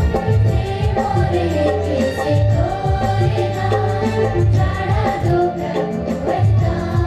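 A youth choir singing a devotional hymn in unison into microphones, amplified over loudspeakers and backed by keyboard, dholak, octopad and electric guitars with a steady beat.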